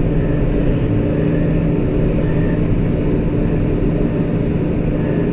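A farm machine's engine running at a steady speed: a constant hum over a low rumble, with no change in pitch.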